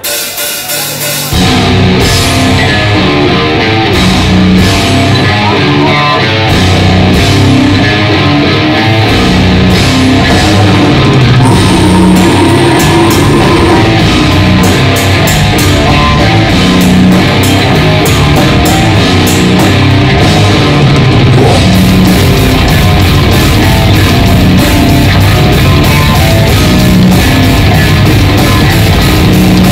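Heavy metal band playing live: distorted electric guitar, bass guitar and drum kit. A few separate hits open it, and the full band comes in about a second and a half in. The drumming grows denser about nine seconds in.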